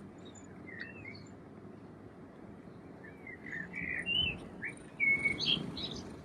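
Birds chirping: a string of short, quick notes that rise and fall in pitch, sparse at first and busier in the second half, over a steady outdoor background hiss.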